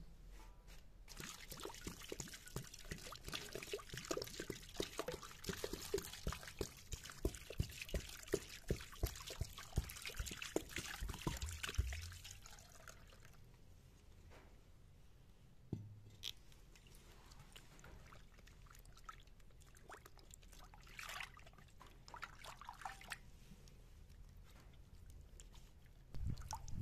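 Water splashing and sloshing in a metal basin as raw lamb liver, heart and kidney are rinsed by hand. It is busy for the first half, then only a few drips and small splashes.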